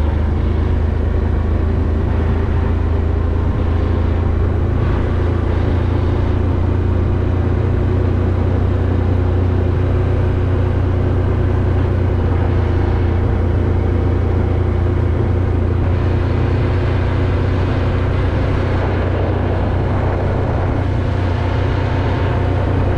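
ATV engine running steadily while riding: a constant low drone with rough ride noise over it.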